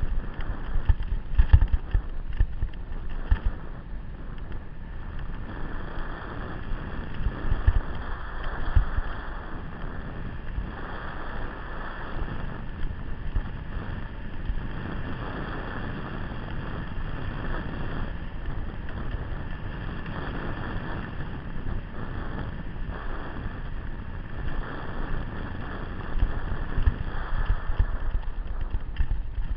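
Wind buffeting and rattling noise from a camera mounted on someone moving along a rough dirt trail. It jolts with heavy thumps over bumps in the first few seconds, again around eight seconds in, and near the end.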